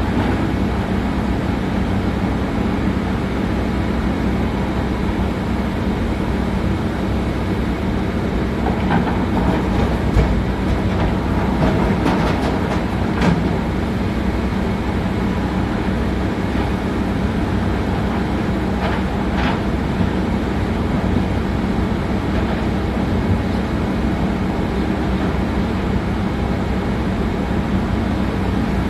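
Komatsu PC200-7 hydraulic excavator's diesel engine running steadily at working revs, with a few short clanks and knocks about a third of the way in and again a little past the middle.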